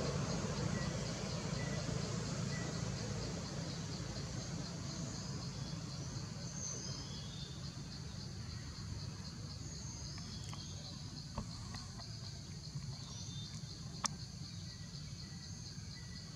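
Outdoor forest ambience: insects chirping in a fast, steady, pulsing trill, with short bird whistles scattered through it and a low rumble that eases off over the first few seconds. Two sharp clicks come in the second half.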